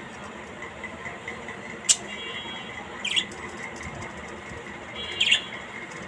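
A green parakeet in a cage gives two short, sharp calls, about a second and three seconds after a single sharp click. A steady background hum runs underneath.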